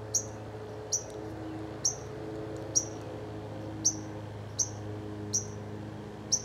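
A bird repeating a short, high chirp about once a second, evenly spaced, over a steady low hum.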